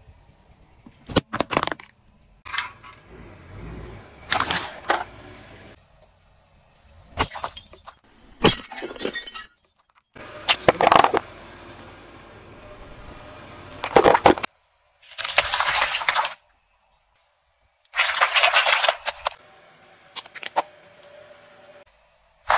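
A car tyre rolling over and crushing soft and crunchy objects: a string of short cracks, crunches, squelches and sharp pops. The pops come from balloons bursting. The segments are split by sudden cuts to silence.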